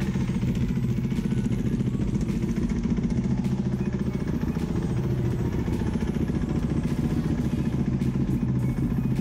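Ducati 1299 Panigale R Final Edition's 1285 cc L-twin idling steadily through a full race exhaust, at an even pitch with a fast, even pulse.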